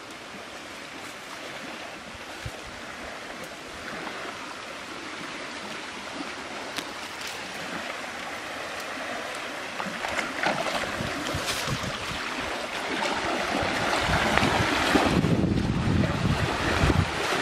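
A steady rush of flowing stream water that grows louder, then heavy splashing and churning as a person wades through a shallow river near the end.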